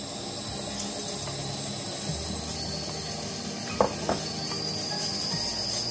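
Pressure cooker hissing steam steadily on the stove, with a high, level whine over it. Two light clicks of a spoon against a bowl about four seconds in.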